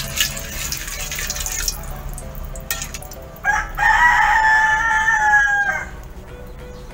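A rooster crows once, starting about three and a half seconds in and held for about two and a half seconds. Before it, in the first second and a half, a ladle stirring hot oil in a wok makes a hiss.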